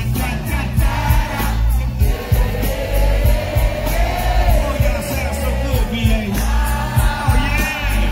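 Loud music with a heavy bass beat and a singing voice.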